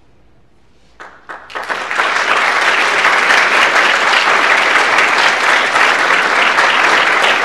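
Audience applause: a few separate claps about a second in, quickly swelling into full, steady clapping.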